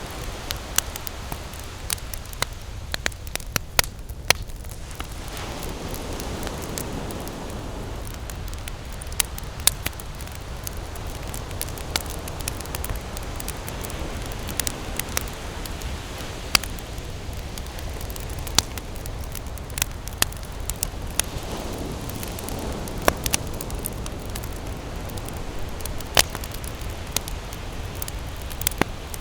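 Wood campfire burning, with sharp crackles and pops scattered irregularly over a steady rush of flame. The rush swells a couple of times.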